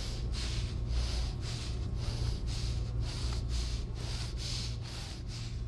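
A person breathing heavily and rhythmically, about two to three hissing breaths a second, over a low steady hum.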